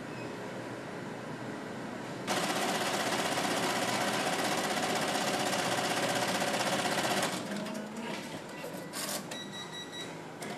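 Melco multi-needle embroidery machine stitching at speed: a fast, even mechanical rattle of the needles that starts a couple of seconds in and stops about five seconds later, leaving a few quieter clicks.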